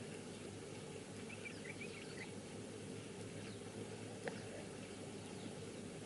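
Quiet natural bush ambience: steady faint background noise with a few short, faint bird chirps a second or two in, and a single sharp click a little past four seconds.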